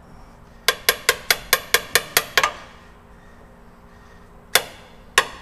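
Hammer driving a new S-cam seal into its housing on a truck air-brake assembly, with no seal driver. A quick run of about nine ringing metal-on-metal strikes, about five a second, then two single blows near the end.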